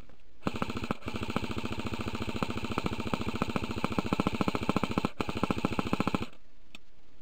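Airsoft rifle firing on full auto: one long burst of rapid, evenly spaced mechanical clicks lasting nearly six seconds, with two momentary breaks.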